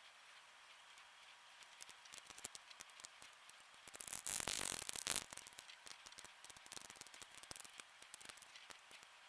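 Small scattered clicks and rattles of plastic controller parts being handled, with a brief hissing rustle about four seconds in.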